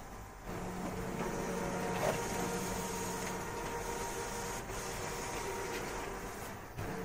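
HP PageWide Managed Color MFP E77650 printer running a print job: a steady mechanical whir with a low hum as paper feeds through. It steps up about half a second in, and there is a single click about two seconds in.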